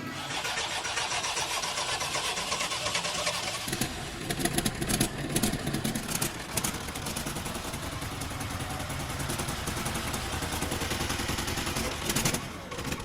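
Freshly rebuilt Fiat 480 tractor diesel engine running, with a few louder surges of revving about four to six seconds in before it settles to a steady run.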